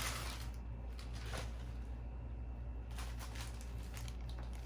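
Faint rustling and handling of product packaging in short, scattered bursts, over a steady low hum.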